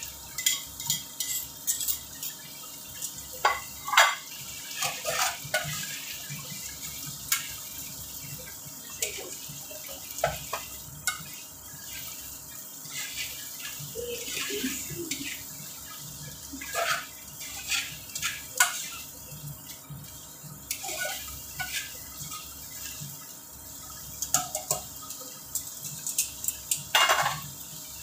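Metal tongs clinking and scraping against a frying pan as spaghetti is tossed and mixed into tomato sauce, in irregular sharp clinks over a steady background hiss. A louder cluster of clatters comes near the end.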